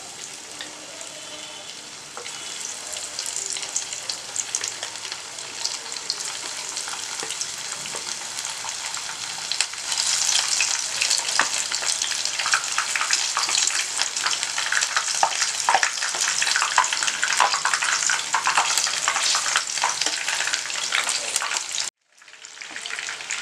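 Battered chicken lollipops deep-frying in hot oil: dense sizzling and crackling that grows louder as more pieces go into the pan, with a jump about ten seconds in. It breaks off abruptly for a moment near the end.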